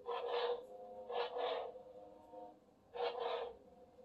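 Eleskoco RGB lightsaber's soundboard playing a steady electric hum through its speaker, with three short swing whooshes as the blade is swung: right at the start, about a second in and about three seconds in. The swings set off separate canned swing sounds rather than smooth swing, which the owner puts down to a downgraded soundboard.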